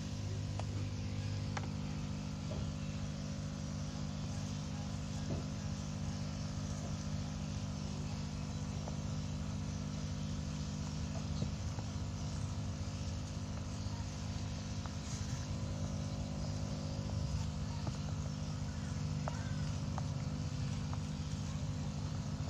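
Small electric aquarium air pump humming steadily with a low, even hum, aerating a foamy bucket of fermenting duckweed fertilizer through air tubing, with a soft bubbling hiss from the foam.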